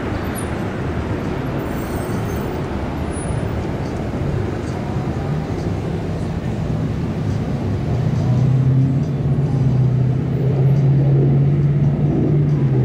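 Steady low rumble of a motor, with a low engine hum that sets in about five seconds in and grows louder from about eight seconds in.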